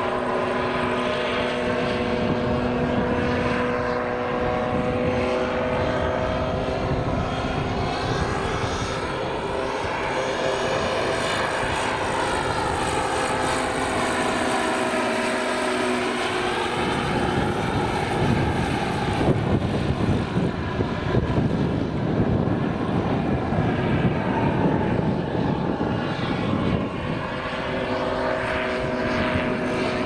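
Turbine-powered large-scale model Eurocopter EC-145 helicopter (Jakadowski Pro X turbine) flying overhead: a steady turbine whine with rotor noise, its pitch bending as it passes. For about ten seconds in the middle the whine is drowned by a louder, uneven rushing noise, and then the whine comes back.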